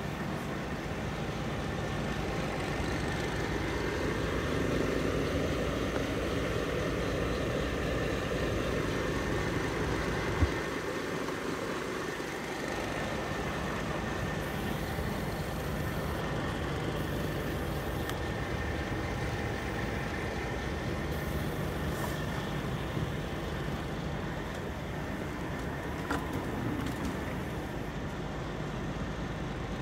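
Scania R440 truck's diesel engine idling steadily, heard from inside the cab, with a single sharp knock about ten seconds in.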